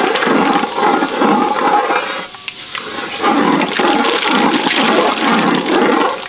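Hot oil sizzling loudly in a large aluminium pot as fenugreek seeds fry in it for tempering, easing off briefly about two seconds in before picking up again.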